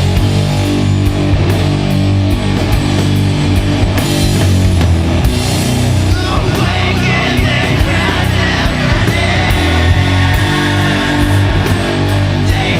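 Doom metal: slow, heavily distorted guitars and bass holding thick low chords over drums, with regular cymbal strokes.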